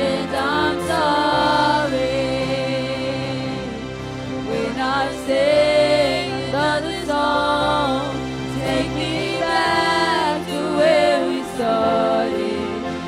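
Live Christian worship song: a female voice sings long, held notes that waver in pitch, over a steady sustained instrumental accompaniment of held chords.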